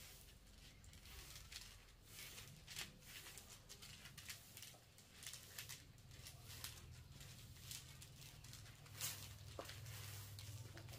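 Faint, irregular small clicks and rustles of objects being handled, over a low steady hum.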